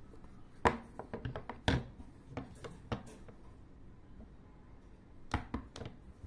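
Sharp clicks and knocks of hard plastic motorcycle intercom units being handled and set down on a wooden tabletop: a quick cluster in the first three seconds, then a few more near the end.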